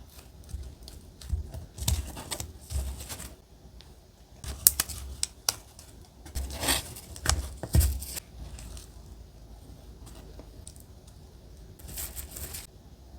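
Paper being handled for collage journaling: irregular crisp rustles with a few sharp clicks, loudest around the middle.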